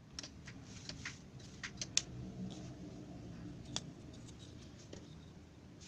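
Light clicks and taps of thin 3 mm plywood parts being handled: a wooden lever linkage moved and a plywood gear wheel picked up, with a sharper tap about two seconds in.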